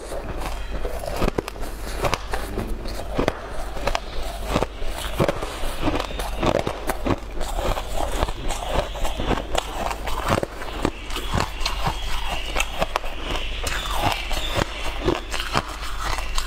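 Close-miked crunching and crackling of a frozen, frost-covered ice treat being bitten and chewed, with many quick, irregular sharp cracks.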